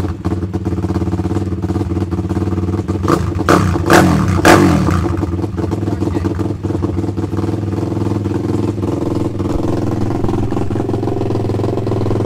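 BBR MM12P pit bike's Daytona four-stroke single-cylinder engine running through an open D3 exhaust with no insert, cold and just started on the first kick. It is blipped with a few quick revs about three to four and a half seconds in, then settles back to a steady idle.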